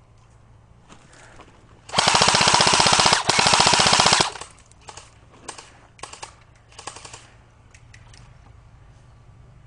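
Airsoft gun firing on full auto: two rapid bursts totalling about two seconds, with a brief break between them, followed by a few scattered faint clicks and snaps.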